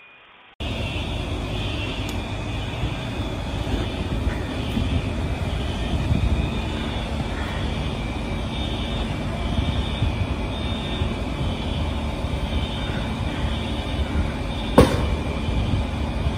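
Loud rumbling outdoor noise at a street fire of burning vehicles, starting abruptly about half a second in. A single sharp crack sounds near the end.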